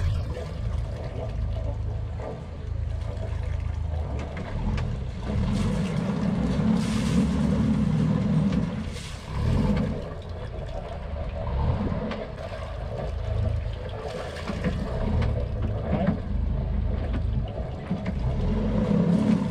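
A sailboat's inboard engine running at low speed while docking, its low rumble rising and falling as the throttle is worked. It swells loudest for a few seconds about a third of the way in.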